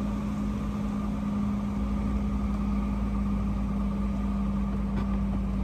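Truck's diesel engine running steadily at low revs, heard from inside the cab: a low rumble with a constant droning tone.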